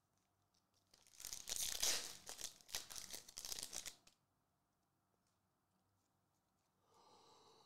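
Foil wrapper of a Panini Contenders football card pack being torn open and crinkled. A crackling rustle starts about a second in and lasts about three seconds, then stops.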